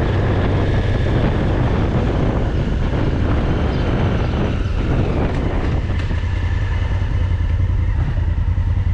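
Motorcycle running steadily on the move, its engine mixed with a steady rush of wind and road noise.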